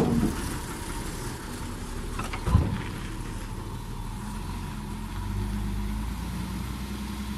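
Diesel dump truck engine running steadily as the truck pulls away, with a single sharp knock about two and a half seconds in and the engine note growing a little louder from about five seconds in.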